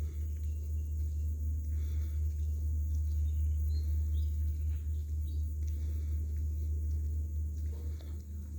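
Outdoor ambience: a steady low rumble with faint insect and bird sounds above it.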